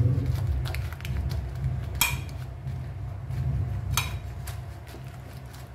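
Metal spoon stirring dried chillies soaking in vinegar in a metal bowl, clinking against the bowl a few times, most sharply about two and four seconds in.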